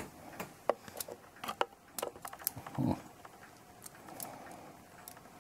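Scattered light metallic clicks and taps, several close together at times, from the brass plates and wheel arbors of a clock movement being squeezed and wiggled between the fingers. The plates are being worked to close over the wheel pivots, which will not yet seat, likely because a part is out of place.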